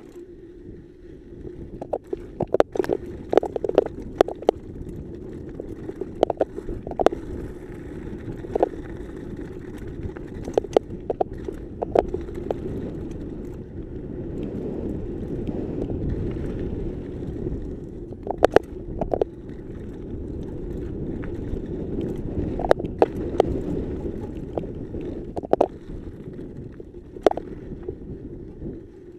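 Mountain bike riding over a dirt trail, heard from a camera on the bike or rider: a steady low rumble of tyres and wind that swells and fades, broken by frequent sharp rattles and knocks, some in quick clusters, as the bike jolts over bumps.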